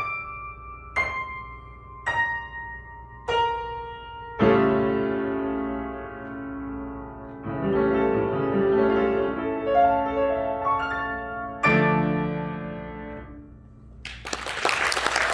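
Upright piano playing the close of a slow solo piece: single notes about a second apart step downward, then sustained chords, and a final chord rings out and fades. Audience applause breaks out near the end.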